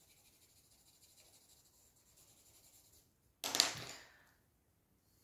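Coloured pencil scratching faintly on paper, then a brief, sudden noise about three and a half seconds in that fades within a second.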